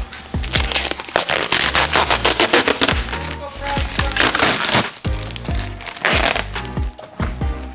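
Background music with deep bass notes, falling bass hits and sharp, crackly percussion.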